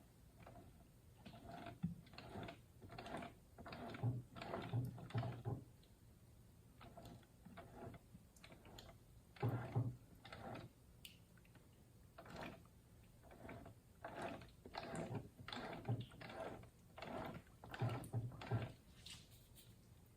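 Irregular clicks and light metallic clunks of parts and tools being handled on an opened manual transmission.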